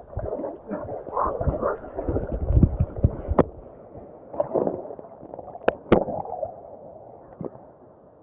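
Seawater sloshing and splashing over a camera held at the surface by a swimmer, heard muffled, in uneven surges that are loudest in the first few seconds. A few sharp clicks stand out partway through.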